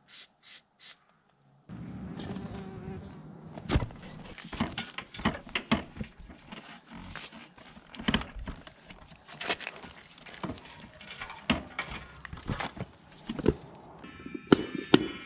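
A few short hisses of an aerosol grease spray on the wheel hub, then repeated metal knocks and clunks as the motorcycle rear wheel is worked back onto its hub and drum brake.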